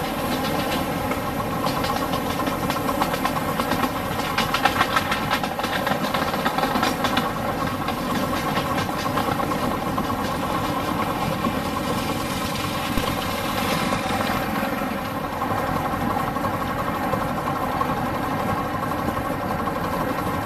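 A 7½-inch gauge ride-on miniature train running along its track: a steady mechanical engine hum, with a stretch of rapid clicking from the wheels over the rails and switches in the first few seconds.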